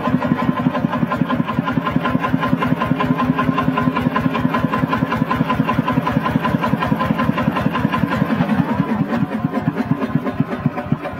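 Two-wheel walking tractor's single-cylinder diesel engine running steadily at idle, a fast, even chugging.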